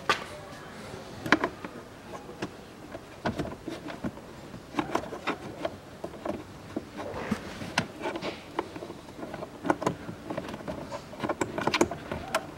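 Plastic clicks and taps of a 2012 Kia Sportage glovebox being worked by hand as its side stops are turned back into place. Irregular sharp clicks and knocks come scattered throughout, with faint rustling between them.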